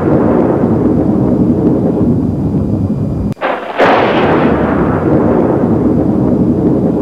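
Deep cinematic boom sound effects. The rumbling tail of one boom fades over the first three seconds, then a second boom hits suddenly about three and a half seconds in and rumbles on.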